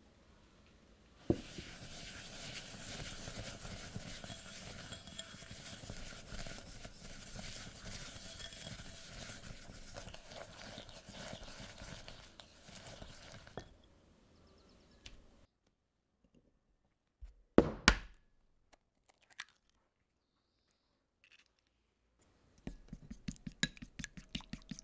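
A hand whisk scraping steadily through butter and sugar in a glass bowl as they are creamed together, for about twelve seconds. A couple of sharp knocks follow, then near the end quick, rhythmic clicking of chopsticks beating an egg in a ceramic bowl.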